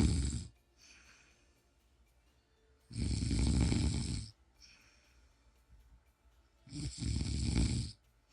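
A person snoring in a steady rhythm: a loud, rasping snore about every four seconds, with a much fainter breath in between.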